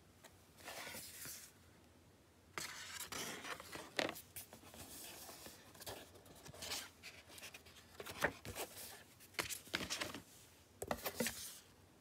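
Paper inserts and cardboard packaging rustling and scraping as they are handled, in several short spells, with a few sharp taps and clicks among them.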